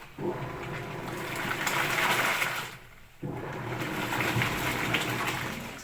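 Top-load washing machine's pulsator agitating water and laundry, a sloshing swish that stops briefly about three seconds in and starts again as the pulsator changes direction.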